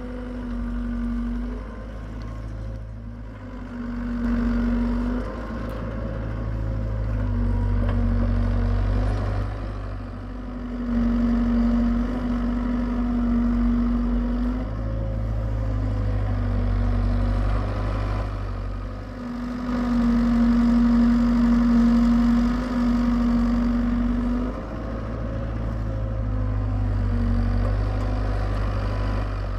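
Hitachi EX75UR excavator's diesel engine running while it digs, swelling and easing over and over as the hydraulics take the load. A steady hum comes and goes with each swell, under a constant low drone.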